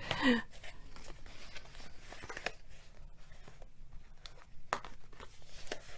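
Cardstock being handled and shifted on a craft mat: soft paper rustles and scattered light taps and clicks.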